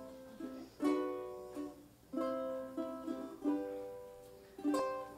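Two ukuleles playing a slow introduction: a chord struck about every second and a quarter, each left to ring and fade, with a few lighter picked notes in between.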